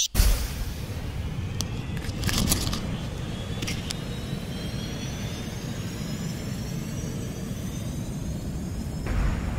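Wind buffeting an action camera's microphone, mixed with water splashing from paddle strokes against a paddle board. It opens with a brief thump, and there are a few sharp splashes or knocks about two seconds in.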